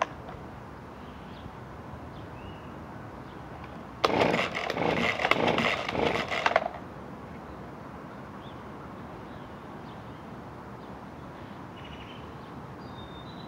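Small two-stroke handheld leaf blower engine briefly firing for about two and a half seconds, starting about four seconds in with an uneven, stuttering run, then cutting off suddenly.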